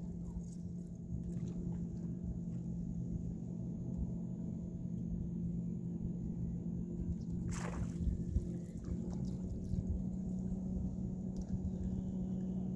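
Steady low hum of a boat motor running, with one brief rushing noise a little past halfway.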